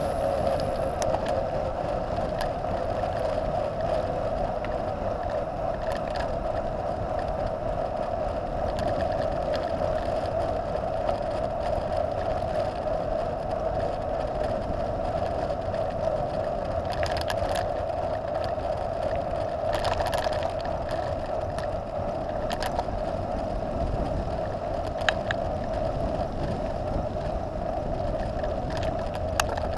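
Trek Top Fuel 9.8 mountain bike rolling fast downhill on asphalt: a steady rolling hum from the tyres on the tarmac, with a few sharp clicks from bumps in the second half.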